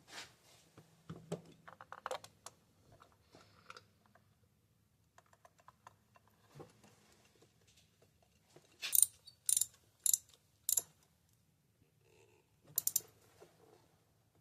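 Ratchet wrench clicking in short strokes while a spark plug is run into the cylinder head: light scattered clicks and rattles, then four loud sharp clicks about half a second apart and a quick double click near the end.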